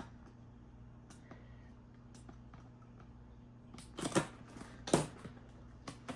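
Cardboard fan box being handled and opened: a few faint taps, then a cluster of sharp crackling rustles and knocks about four to five seconds in.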